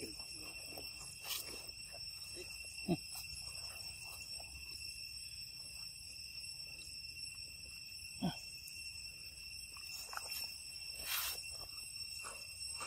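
Insects trilling steadily at several high pitches, with two short, sharper sounds, one about three seconds in and one about eight seconds in.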